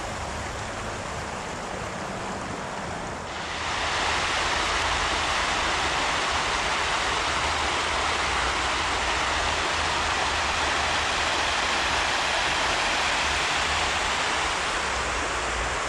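Spring-tide water of the River Yeo overtopping the bank and rushing across flooded grass, a steady rush of water. About three seconds in it becomes louder and brighter.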